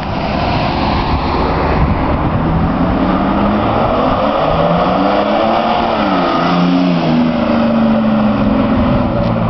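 Straight-piped Mercedes E300 TD (W210), its 3.0-litre turbodiesel straight-six loud through the open exhaust, driving past and pulling away. The engine's pitch climbs, dips briefly about six seconds in, then climbs again.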